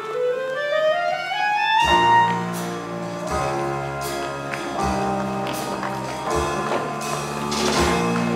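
Jazzy band music: a clarinet slides smoothly upward, and about two seconds in the full band comes in with brass chords over a steady beat.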